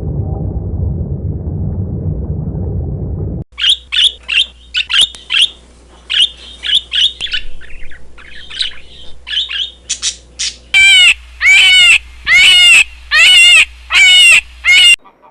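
A low rumbling noise that cuts off sharply, then a bird calling: a run of quick high chirps, followed near the end by six loud squawks evenly spaced.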